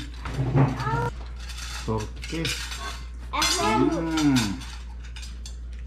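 A person's voice making a long, wordless hum or moan that rises and then falls in pitch, about three and a half seconds in, after a few shorter voiced sounds. Forks clink against plates around it.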